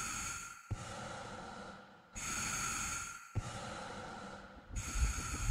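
Slow, heavy breathing as trailer sound design, about four long breaths, with a sharp low thump at the start of two of them. A low pulsing rumble starts near the end.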